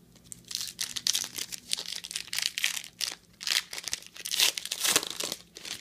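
Foil wrapper of a Panini Select trading-card pack crinkling and tearing as it is opened by hand, in a run of separate crackly rustles.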